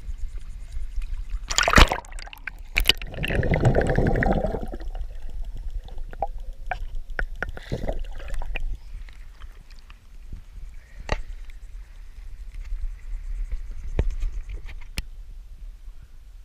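Shallow tidal water sloshing and splashing around a person wading. Several sharp knocks cut through it, the loudest about two seconds in, and a heavier rush of splashing follows around four seconds in.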